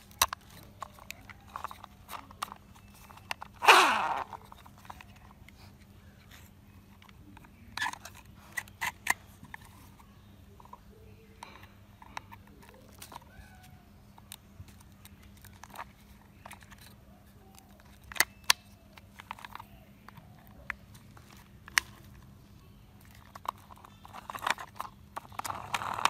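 Plastic toy parts clicking and knocking as yellow plastic wheels are pushed onto the axle pins of a toy backhoe's body: scattered light clicks, with a louder, brief sound that falls in pitch about four seconds in.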